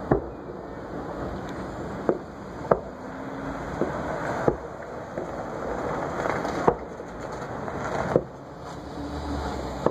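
Fireworks exploding: about seven sharp bangs at irregular intervals of one to two seconds, with a steady rushing noise between them.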